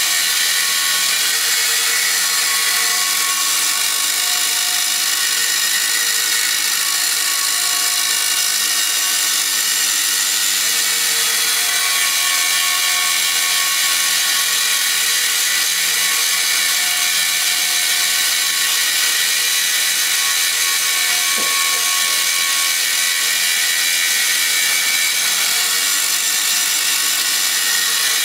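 Angle grinder with a cut-off disc, clamped in a jig, running steadily under load as it cuts through steel plate: a steady whine of several held tones over a grinding hiss, unbroken throughout.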